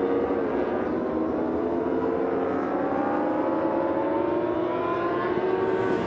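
Racing motorcycle engines running hard, their pitch climbing slowly and steadily as the bikes accelerate. More than one engine is heard at once.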